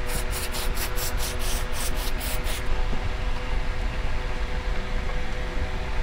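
Aerosol spray can of cleaner sprayed onto the switches of a mechanical keyboard, in rapid short bursts of about four or five a second. After about two and a half seconds it settles into a softer, steadier hiss.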